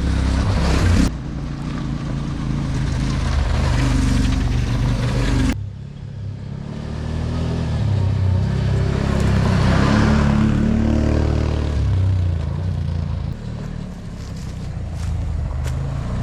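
Engines of large off-road buggies running and revving as they pass, their pitch rising and falling. The sound drops off abruptly about five and a half seconds in, then builds again.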